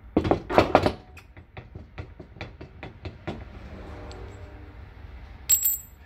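Steel washers and a nut clinking against the wheel's metal hub and spindle as they are handled and fitted: a quick flurry of sharp clinks, then a run of lighter ticks, and one sharp ringing clink near the end.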